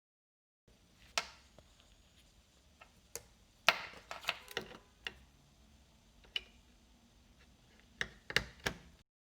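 Scattered sharp clicks and knocks of hands working on an opened plasma TV, fitting boards and connectors, about nine in all, with a quick run of three near the end.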